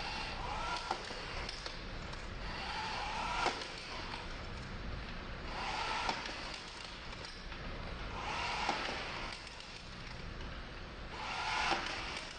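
SMART TIE rebar tying tool cycling repeatedly: a whirring tie cycle about a second long, with a click, about every two and a half seconds, five times over a steady low rumble.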